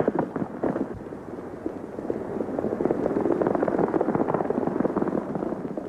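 Horses galloping on an old film soundtrack: a quick, steady run of hoofbeats.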